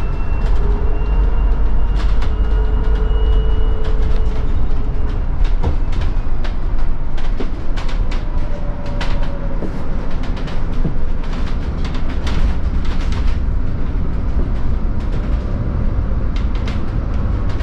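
Cabin noise inside a moving Scania Citywide battery-electric bus: steady low road rumble, the electric drive's whine rising and falling slightly in pitch, and scattered clicks and rattles from the interior fittings.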